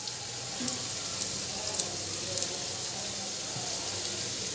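Small puris deep-frying in hot oil in a kadai: a steady sizzle with a few faint crackles scattered through it.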